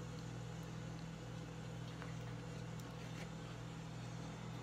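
Steady low hum, even and unchanging, with a few faint soft clicks of someone chewing a bite of donut.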